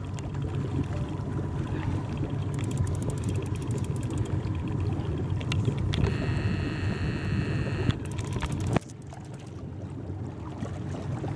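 Boat engine idling in neutral, a steady low hum under wind and water noise. A high whine lasts about two seconds around six seconds in, and the overall level drops suddenly a little before nine seconds.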